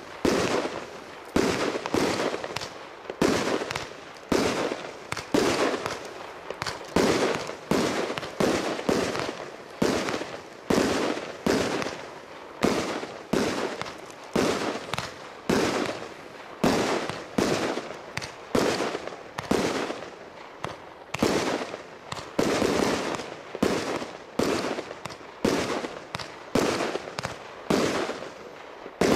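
A 49-shot consumer fireworks cake firing: a steady string of sharp shots, about one and a half a second, as its tailed shells launch and break overhead, each shot trailing off in a short echo.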